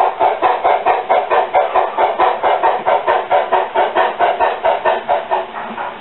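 Steam exhaust chuffs from the ESU sound decoder of a model C16 steam locomotive, played through its small speaker in a rapid, even rhythm. The chuffs grow somewhat quieter near the end.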